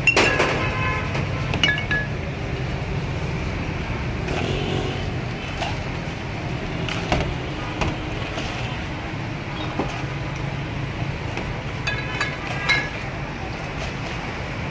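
Glass soda bottles clinking, several sharp clinks with short ringing tones, a cluster of them near the start and another about 12 seconds in. Under them runs a steady low rumble of street traffic.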